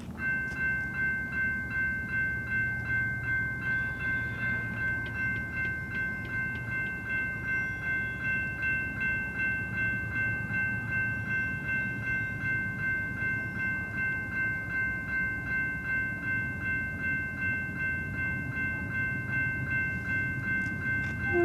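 Railroad grade-crossing warning bell ringing with an even pulse of about two strokes a second, starting right at the beginning; it is the crossing's warning that a train is approaching. A low rumble lies underneath.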